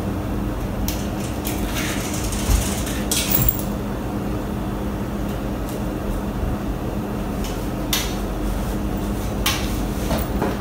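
Cat rummaging in a kitchen drawer: scattered rattles and rustles from the drawer and a plastic bag it pulls out, over a steady low hum.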